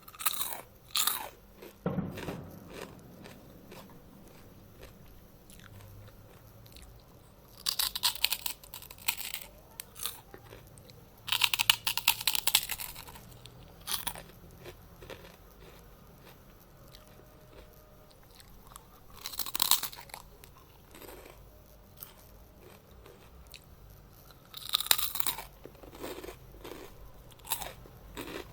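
Close-miked bites and crunching of a crisp snack being eaten. Loud crunch bursts come every few seconds, and quieter chewing fills the gaps between them.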